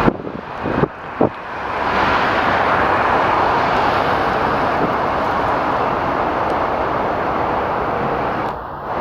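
Airbus A321 jet engines running with a steady rushing noise as the airliner arrives, swelling about two seconds in. A few brief knocks come in the first second or so.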